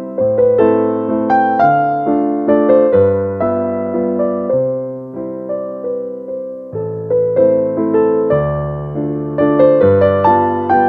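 Background piano music: a melody of struck notes over lower bass notes, each note fading after it is struck.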